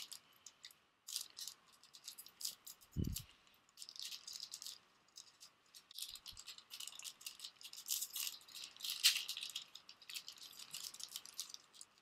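Crinkling and crackling of a shiny plastic trading-card booster pack wrapper handled and torn open by hand, in quick irregular bursts, with one dull thump about three seconds in.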